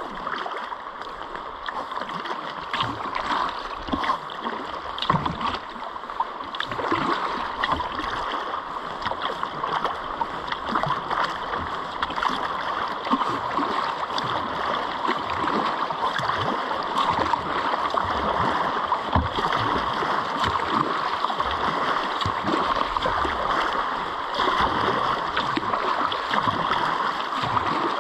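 Shallow river current rippling and gurgling around the hull of a kayak being paddled upstream, with many small paddle splashes over a steady water noise.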